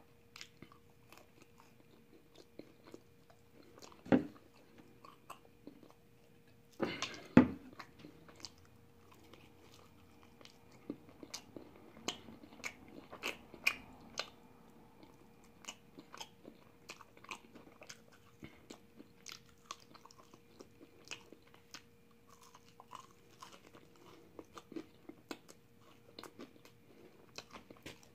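Close-up chewing and biting of crispy fried chicken wings: many small mouth clicks and smacks, with two louder sharp crunches about four and seven seconds in. A faint steady hum runs underneath.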